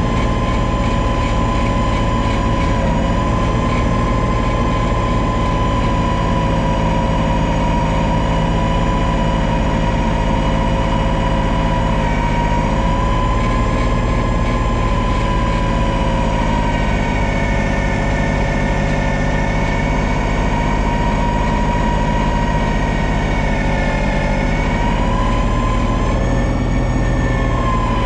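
John Deere 2032R compact tractor's three-cylinder diesel running under steady load, driving a front-mounted 60-inch snow blower that is throwing snow. There is a constant engine drone, with a high whine on top that wavers slightly in pitch and dips briefly near the end.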